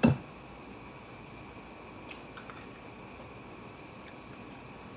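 A single sharp crack as an egg is broken against a bowl, then only a few faint light clicks over a faint steady hum.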